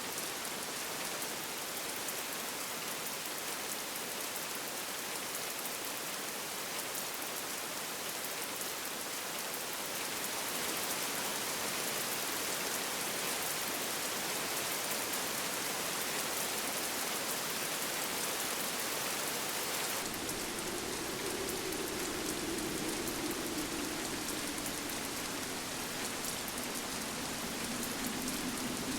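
Steady rain falling, a dense even hiss. About two-thirds of the way through, a howling wind joins it, its pitch sinking and then rising again.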